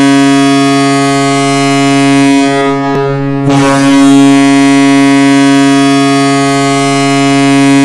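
Ice hockey arena goal horn sounding for a goal in long, deep, steady blasts. One blast cuts off about three seconds in, and after a short gap a second one holds for the rest.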